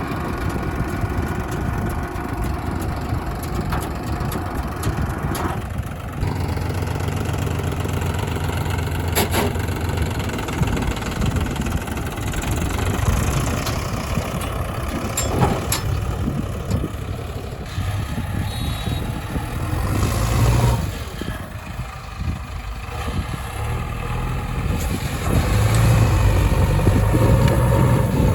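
Diesel engines of a backhoe loader and farm tractors running under load. The pitch rises and falls, and there are a few sharp knocks, heaviest from about a quarter of the way in and again near the end.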